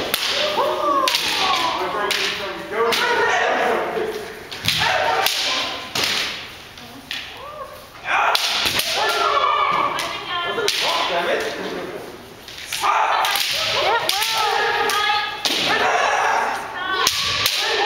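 Bamboo shinai striking and clacking in quick, irregular cracks during kendo sparring, with occasional shouted kiai between the strikes, all echoing in a gym hall.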